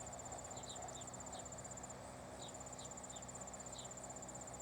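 Insect chorus: a steady, rapid high-pitched trill that breaks off briefly about two seconds in, with short falling chirps repeating irregularly underneath.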